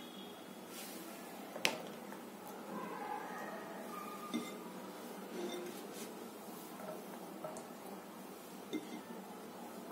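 A few light clinks of a glass bowl and dishes while pomegranate seeds are sprinkled on by hand. The sharpest clink comes about a second and a half in, and smaller ones come around four and nine seconds, over a faint steady hiss.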